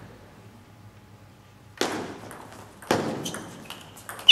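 Table tennis ball being served and returned: after a short quiet, two sharp echoing hits about a second apart, then several lighter, quicker taps of the ball on bats and table, and a loud hit right at the end.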